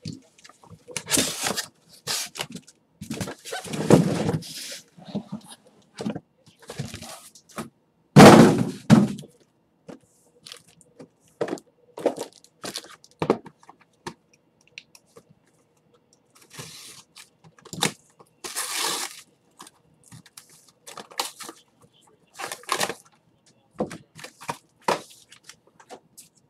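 Trading-card boxes and packs being handled and unpacked on a table: irregular rustling, scraping and cracking, with a heavy thump about eight seconds in.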